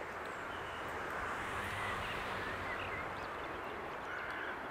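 Outdoor background: a steady low rumble that swells slightly in the middle, with a few faint chirping bird calls.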